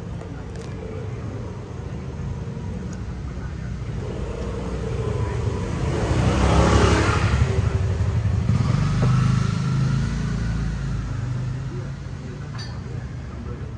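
A motor vehicle passing close by on the street. Its sound swells to a peak about six or seven seconds in and then fades away, over a steady low traffic rumble.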